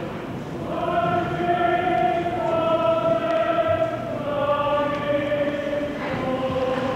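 Choir singing slow, sustained chords, each held note changing pitch about once a second, from a staged operetta.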